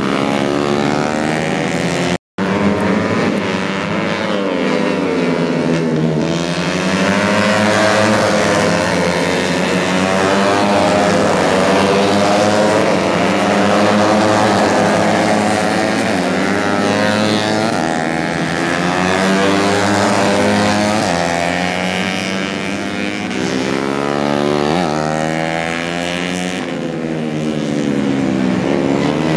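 Several four-stroke 130 cc big-bore racing motorcycles running hard past on the straight. Their overlapping engine notes rise and fall as the bikes accelerate and pass, with a brief gap in the sound about two seconds in.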